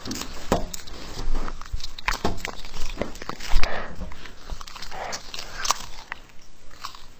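Pet animal sounds: irregular clicks and taps with a few short animal noises, and a sharp knock about three and a half seconds in.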